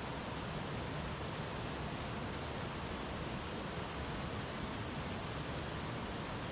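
Brook water running and bubbling over its bed: a steady, unbroken rush of water.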